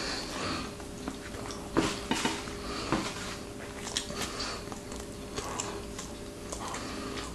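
Someone eating a sandwich, with soft mouth sounds and scattered light clicks and clinks of dishes being handled; the sharpest click comes a little under two seconds in.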